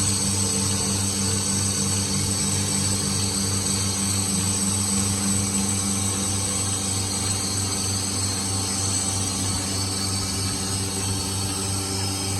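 A motor-driven machine running steadily: a constant electric hum with a regular low pulse and a thin high whine, no starts or stops.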